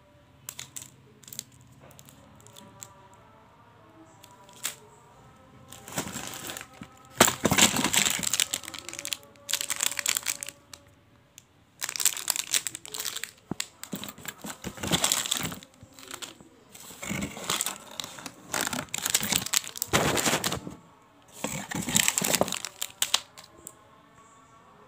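Plastic sweet wrappers being handled: cellophane lollipop wrappers and crinkly biscuit packets, with a few light clicks at first and then repeated bursts of crinkling with short pauses between them.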